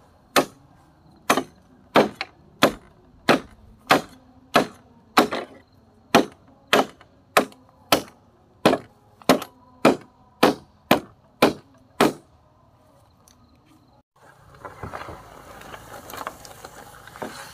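Repeated sharp chopping blows on wood, about twenty of them at roughly two a second, stopping about twelve seconds in. A different, even noisy background comes in near the end.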